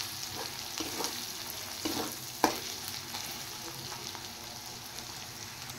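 Chopped onion, garlic and ginger sizzling in hot oil in a metal wok while a metal spatula stirs them, with a few sharp scrapes and taps of the spatula on the pan, the loudest about two and a half seconds in.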